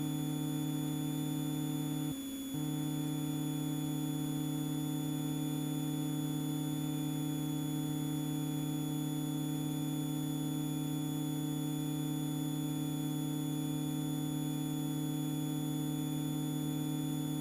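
Extra EA-200's four-cylinder Lycoming engine and propeller running steadily in a climb, heard as an even hum with a short dip about two seconds in.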